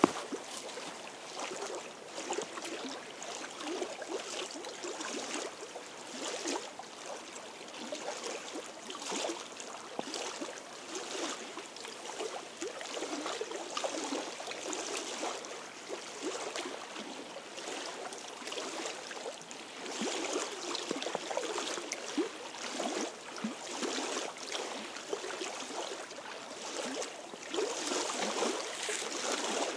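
Small lake waves lapping and splashing against shoreline rocks, an irregular, continuous gurgle.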